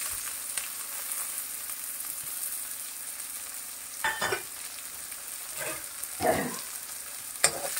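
Chopped onion sizzling steadily in hot oil in a kadhai. A few short stirring strokes come in the second half, and a sharp click comes near the end.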